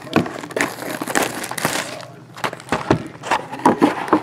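Plastic shrink-wrap crinkling and a cardboard trading-card box rustling as the sealed box is unwrapped and its lid opened by hand, in a run of irregular rustles and small clicks.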